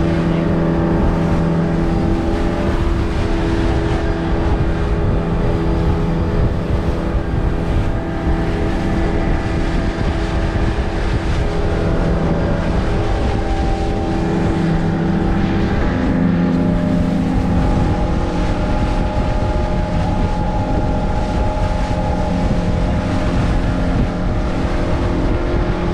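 Motorboat engine running steadily, with a shift in its pitch about two-thirds of the way through.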